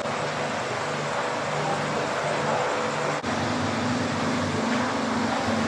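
Steady road-traffic noise with a low engine hum that changes pitch at an abrupt break about three seconds in.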